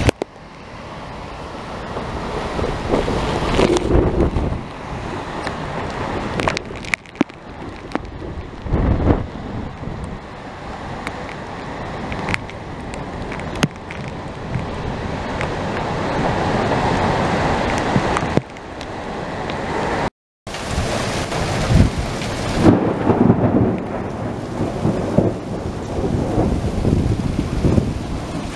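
Severe thunderstorm: strong gusting wind and heavy driving rain. The noise swells and eases with each gust, with a few sharp knocks scattered through it. The sound cuts out briefly about twenty seconds in.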